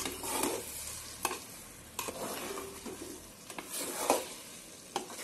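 Metal spoon stirring cracked-wheat lapsi through hot ghee in a metal pot, with a steady sizzle and a sharp clink of the spoon against the pot every second or so, as saffron milk is being mixed in.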